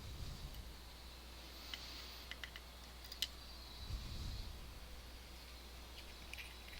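A few sharp little metal clicks and soft knocks as driver pins and springs are worked out of the pin chambers of a disassembled DOM ix TwinStar dimple lock.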